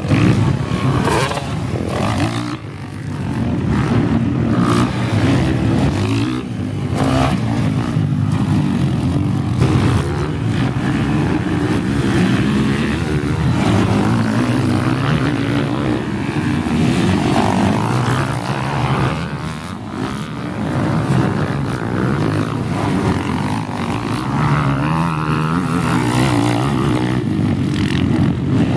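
Motocross dirt bike engines racing on the track, revving up and down in pitch as the bikes accelerate, jump and corner, with more than one bike at times.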